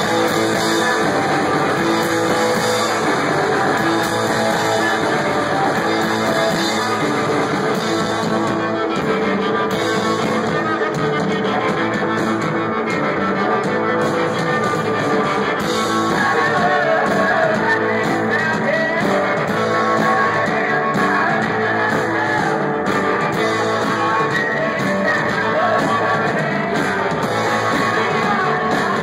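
Live rock band playing a song: electric guitars and a drum kit with a lead singer, loud and steady throughout.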